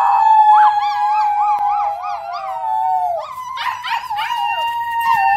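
Several people howling like wolves in long overlapping held notes, one voice wavering up and down in pitch for a while, with fresh howls joining about three seconds in.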